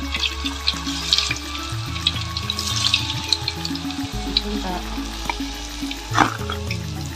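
Pieces of cassava cake (getuk) frying in hot oil in a wok, with a steady crackling sizzle. Background music plays over it. About six seconds in there is a brief clatter as a slotted spatula lifts the fried pieces onto a plastic plate.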